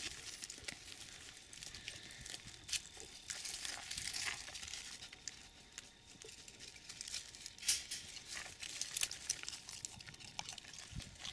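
A sheep tearing at and chewing dry straw and weeds, heard as a scattered, irregular crackling and rustling.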